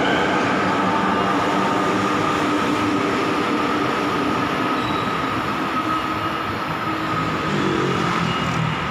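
Bombardier Innovia ART 200 light-rail train pulling away along an elevated guideway. Its linear induction motor drive gives a steady high whine and lower tones that drift in pitch, over a continuous rumble of wheels on rail.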